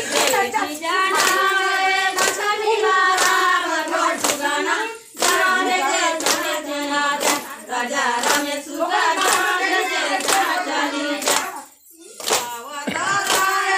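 A group of women singing a suhag geet, a wedding folk song, in unison, with steady rhythmic hand clapping at about three claps every two seconds. The singing breaks briefly about five seconds in and again near twelve seconds.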